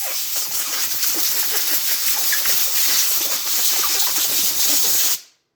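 Compressed-air blowgun nozzle giving a loud, steady hiss as it blows dirt and grit out of a hydraulic roller lifter. The hiss cuts off suddenly near the end.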